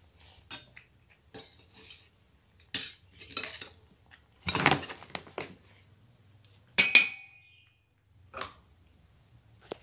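Scattered clinks and scrapes of a cat's food dish being handled, with one sharp ringing clink about seven seconds in.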